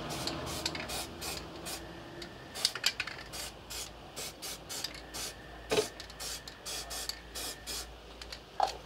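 Aerosol spray can spraying a protective coating onto bare metal, in a quick series of short hissing bursts, a few a second.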